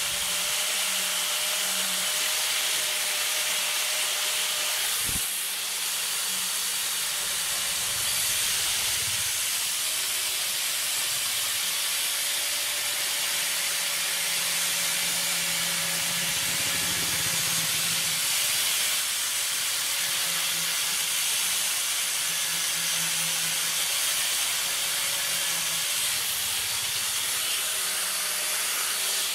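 Angle grinder running steadily while its disc grinds the steel head of a ball pein hammer: a continuous loud hiss of grinding over a steady motor whine.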